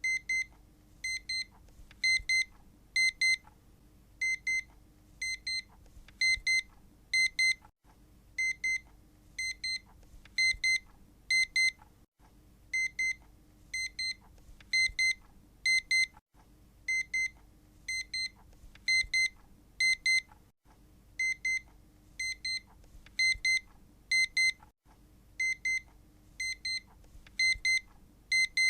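Electronic alarm beeping: short, high-pitched double beeps about once a second, repeating over and over in an even pattern.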